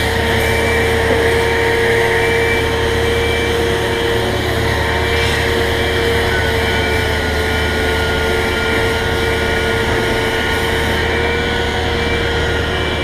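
Electric rotary polisher running steadily as it buffs rubbing compound into a fibreglass boat hull: a continuous motor whine over a low hum, with a second, higher tone joining about six seconds in.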